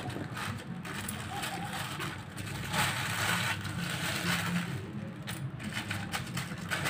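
Thin polythene sheet rustling and crinkling as hands roll and wrap a soft biscuit-dough swiss roll inside it.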